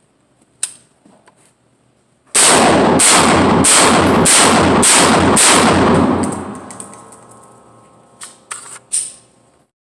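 Smith & Wesson M&P15 AR pistol with a 7.5-inch barrel, chambered in 5.56/.223, firing six rapid shots as three double taps, loud and echoing in an indoor range booth. A few sharp clicks follow near the end.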